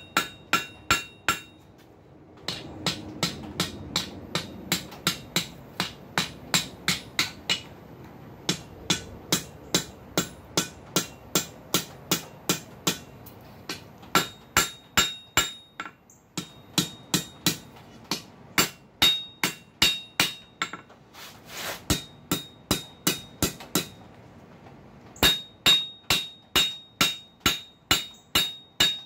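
Hand hammer striking hot steel flat stock on an anvil, rolling the end into a scroll. The blows come in quick runs of about three a second, with a few short pauses, and the anvil rings between strikes.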